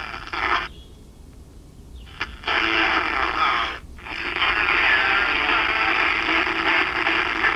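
Kensington 8-transistor AM pocket radio playing a broadcast station through its small speaker. It falls quiet for about a second and a half near the start, then the station comes back in strongly. The radio is not working right: it stays silent unless a signal is strong, almost like a gating squelch.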